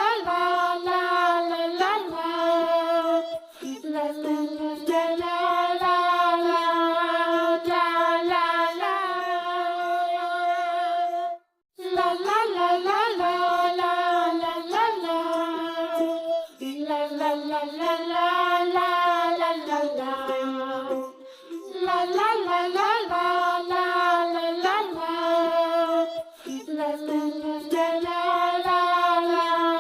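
Background children's song sung by a high, child-like voice, with long held notes. The audio cuts out briefly about a third of the way in.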